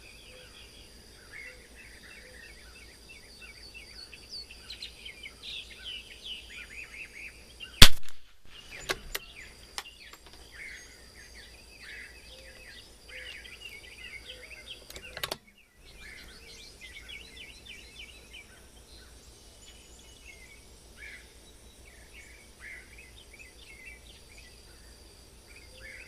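A single rifle shot from an Anschutz 54 rimfire target rifle about eight seconds in, followed by a few short clicks, with small birds chirping steadily throughout.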